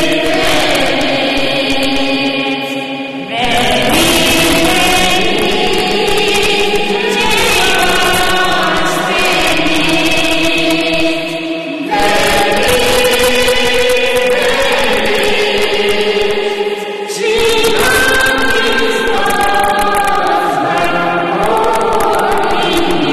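Choir singing a slow chant in long, held phrases of several voices, with brief breaths between phrases about three, twelve and seventeen seconds in.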